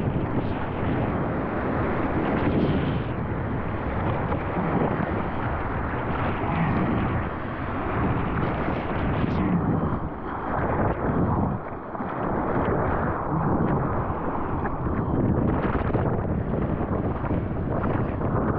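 Gale-force wind gusts buffeting the microphone: a dense rushing noise that swells and dips with the gusts, easing briefly a little past the middle.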